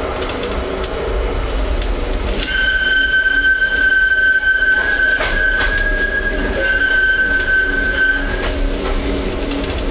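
Oslo tram running with a steady low rumble; about two and a half seconds in its steel wheels start a high, steady squeal, typical of a tram taking a curve, which stops after about six seconds. A few sharp clicks, like wheels crossing rail joints, come in the middle of the squeal.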